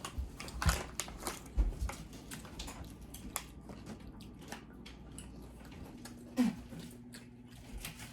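Crunchy spicy potato chips being bitten and chewed: a run of crisp crunches, loudest in the first couple of seconds, then lighter chewing.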